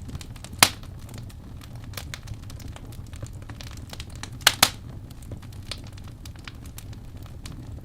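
Wood fire in a fireplace crackling over a steady low rumble of the flames, with many small ticks and snaps, one loud pop about half a second in and two loud pops in quick succession near the middle.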